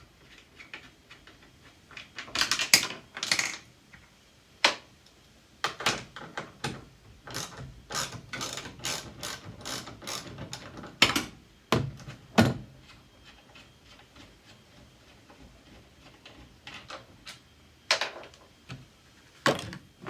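A hand ratchet clicking in bursts as the tail-light bolts are undone, with a few louder knocks between the runs of clicks.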